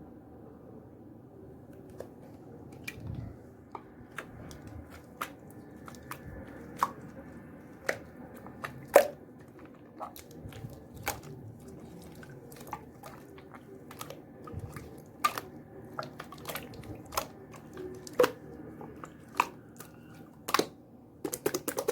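Clear slime being squished and pressed by hand, giving irregular sharp clicks and pops as air pockets burst, one to two a second and faster near the end, over a faint steady hum.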